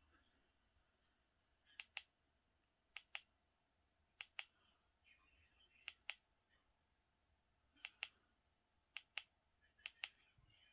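Button clicks of a remote control stepping through a Blu-ray menu: about seven short presses, each a quick double click, spaced one to two seconds apart over near silence.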